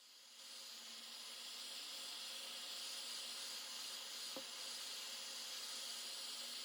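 Heat gun blowing steadily, a faint even hiss that fades in over the first second or so, heating the phone's back to soften its adhesive.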